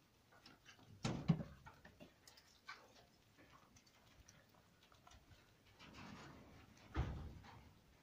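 Faint scattered clicks and scraping from a squirrel gnawing a nut among loose shells and gravel, with two louder knocks about a second in and about seven seconds in.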